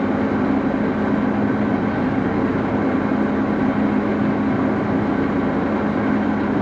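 Axelson lathe's drive running with a steady hum, the chuck standing still and no cut being made.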